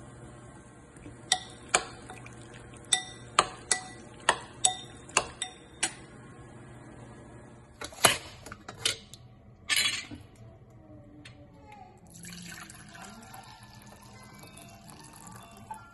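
A metal spoon clinks sharply against a glass bowl about a dozen times while mixing. Then there is a loud clatter of metal knocks as the lid of a stainless pressure cooker is handled. Last comes liquid stock pouring into a glass measuring jug, its pitch rising as the jug fills.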